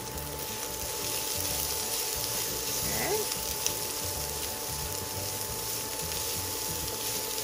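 Sliced bell peppers, celery, onion and garlic sizzling in a hot oiled pan as they are tossed with tongs: a steady hiss.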